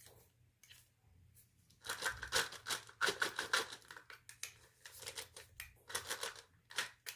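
Supplement bottles and their packaging being handled: a dense run of small clicks and rustles starting about two seconds in.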